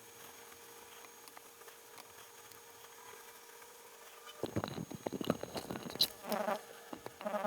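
Faint hiss with scattered small clicks, then about a second and a half of rapid clicking like a speed cube's plastic layers being turned fast, followed by two short buzzing tones.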